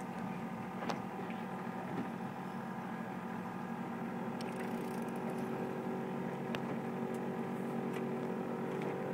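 Boat engine running steadily, a constant hum with a few faint ticks over it.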